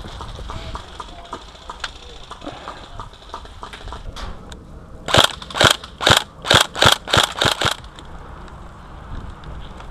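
Tokyo Marui SCAR-L electric blowback airsoft rifle firing a quick string of about nine single shots over two and a half seconds, each a sharp clack. Before it, a few seconds of faint clicks and rustling.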